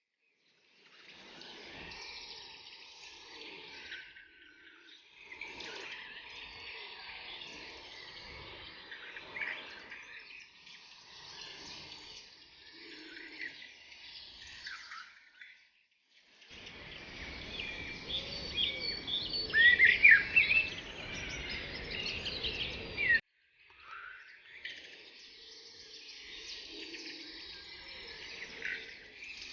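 Several birds chirping and calling together, many short high notes overlapping over a faint background noise. The sound comes in stretches that stop abruptly, the loudest calls about two thirds of the way through.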